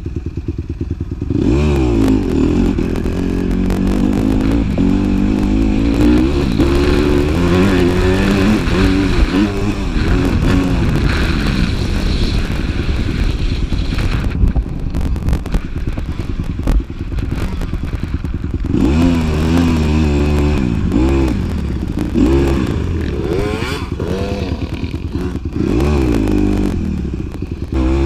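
Dirt bike engine being ridden hard, its pitch climbing and dropping again and again as the throttle is opened and shifted through the gears. It eases off for a few seconds past the middle, then revs up repeatedly again.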